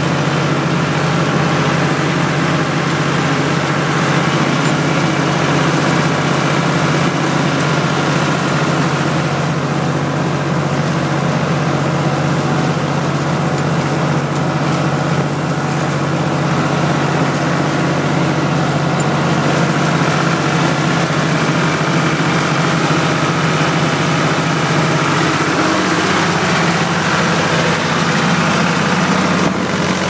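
Ford 3000 tractor engine running steadily under load while pulling a two-furrow plough, heard from the driver's seat. Its note rises slightly near the end.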